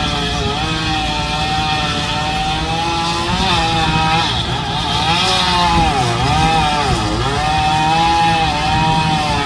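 Gas chainsaw running under load, cutting wood; its engine pitch sags and recovers several times, most deeply in the second half.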